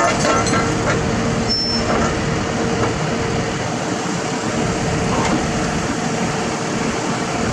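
Heavy diesel machinery running steadily, a constant engine hum under a broad rumbling noise, with a few faint clicks near the start.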